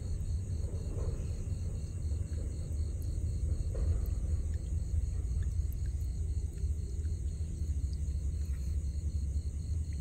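Steady low rumble, with a thin, high chirr of night insects pulsing evenly about four times a second above it. A little faint splashing comes from hands working a fish in shallow water.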